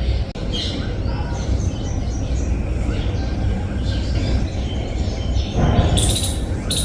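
Garden birds chirping in short scattered calls over a steady low background rumble, with a brief louder rushing noise near the end.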